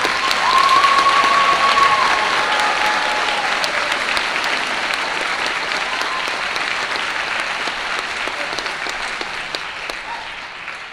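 Audience applauding, loudest about a second in and slowly dying down. One held high note rises above the clapping from about half a second to two seconds in.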